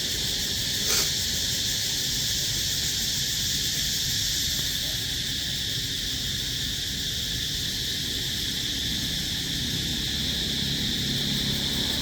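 Insects droning steadily at a high pitch, with one sharp click about a second in.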